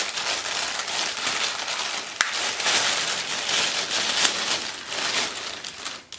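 Plastic poly mailer bag crinkling and rustling as it is torn open and a wicker tray is pulled out of it, with a sharp click about two seconds in.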